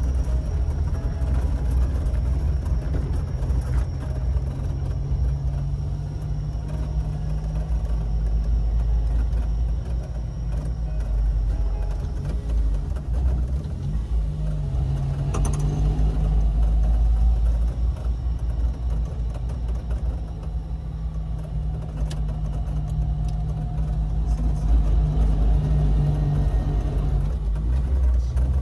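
Car engine running with steady road rumble, heard from inside the cabin while driving. The engine pitch rises and falls a few times, and there are a couple of brief knocks.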